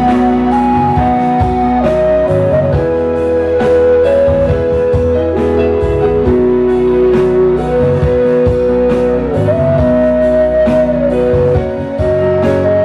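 Yamaha electronic keyboard playing an instrumental passage: a melody in long held notes over a bass line and a steady drum beat.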